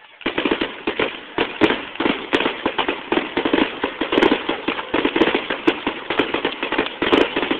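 Fireworks going off in a rapid, continuous string of crackling bangs that starts abruptly just after the beginning and keeps on without a break.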